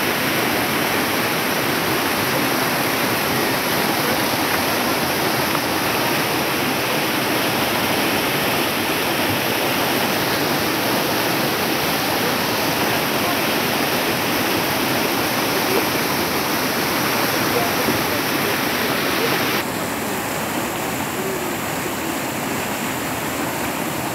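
Turbulent water rushing out of a dyke's outlet culvert pipes and churning through the channel below, a loud, steady rushing that drops a little in level for the last few seconds.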